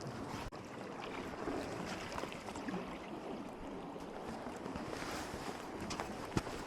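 Steady outdoor noise of wind and water at the waterside, with a few faint scattered ticks.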